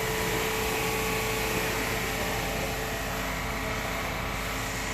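Steady mechanical hum like a running fan or blower, with one faint constant tone, unchanging throughout.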